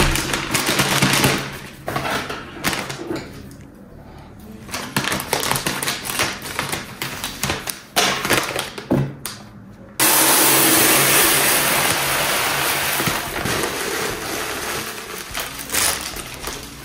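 Plastic food bag crinkling as it is opened and handled, then, from about ten seconds in, dry grain pouring out of the bag into a plastic storage container as a steady hiss that fades off near the end.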